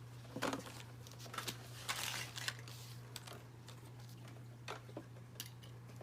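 Faint handling noise from a plastic toy refrigerator and its small parts: scattered light clicks, and a rustle about two seconds in, over a steady low hum.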